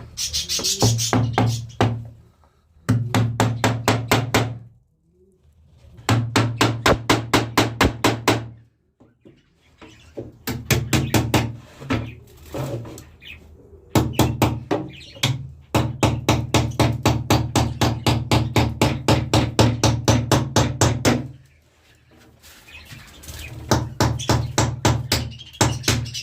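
A hammer driving nails into a wooden nesting box: runs of quick, even blows, about five a second, broken by short pauses, over a steady low hum. The nails are hard to hammer in.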